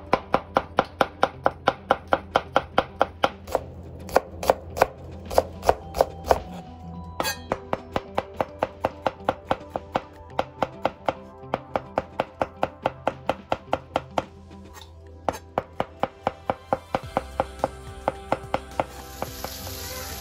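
Chef's knife slicing button mushrooms on a plastic cutting board: sharp, steady knife taps about three to four a second, with two short breaks. Near the end the taps stop and rib-eye steaks sizzle in a frying pan.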